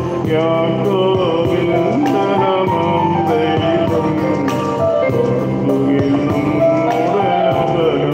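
A liturgical hymn sung with instrumental accompaniment: a flowing sung melody over steady, held low notes.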